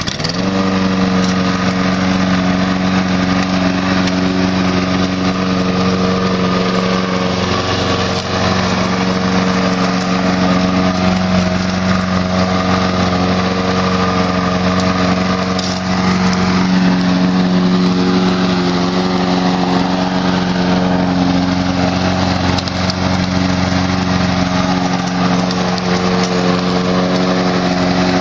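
Walk-behind petrol lawn mower engine, which comes up to speed right at the start and then runs steadily at a constant pitch while mowing.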